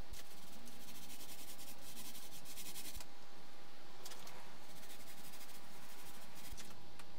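Gloved hands rubbing over an epoxy-wetted fibre-cloth layup, smoothing it flat: a soft hissing rub for about the first three seconds, then a shorter rub around four seconds in.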